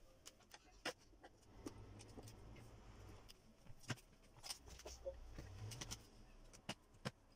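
Faint, irregular clicks and small scrapes of a flat screwdriver prying staples out of the underside of an upholstered office-chair seat, one staple at a time.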